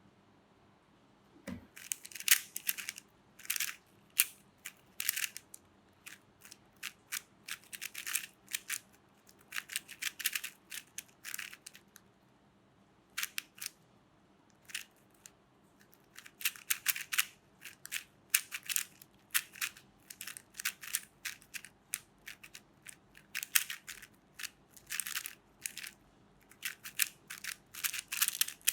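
Rubik's cube being turned by hand in rapid runs of plastic clicking and clacking, bursts of moves broken by short pauses.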